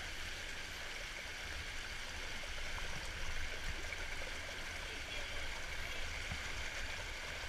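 Creek water rushing steadily over and between rocks in a small cascade.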